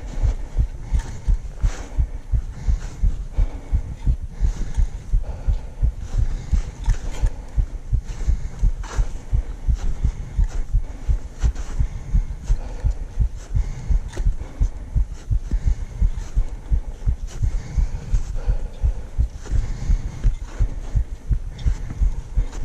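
A mountaineer's steady footsteps on the climb, heard as evenly spaced low thumps about twice a second, with light crunching alongside.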